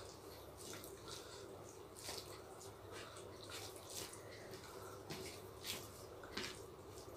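Faint, irregular wet smacks and clicks of people eating rice and chicken curry with their hands.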